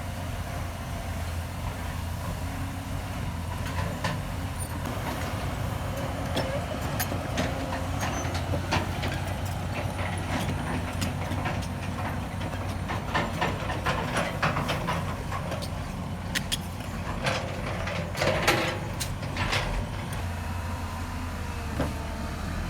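Heavy diesel construction machinery running steadily, with frequent metallic clanks, knocks and short squeaks throughout.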